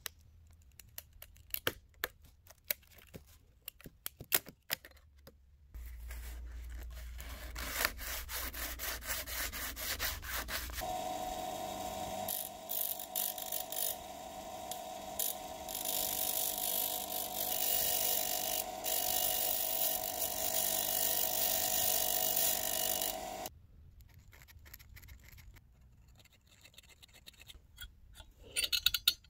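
Light scratching and tapping of sheet metal being handled and marked, then a bench grinder running steadily with a steel strip held against its wheel, the loudest sound, for about twelve seconds. A sharp click of a centre punch comes just before the end.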